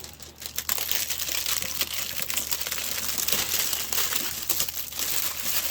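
Plastic packaging crinkling and crackling as it is handled and pulled away from a toy chainsaw, a continuous run of small crackles.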